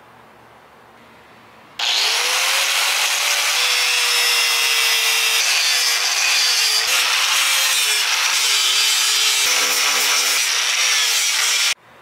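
Angle grinder fitted with a sanding disc grinding into a block of cedar. The motor's whine dips and recovers as the disc bears into the wood. It starts about two seconds in and cuts off abruptly near the end.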